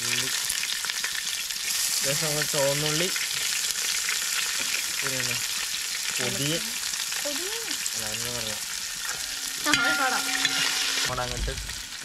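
Shallots frying in hot oil in a wide pan, a loud steady sizzle as they are stirred.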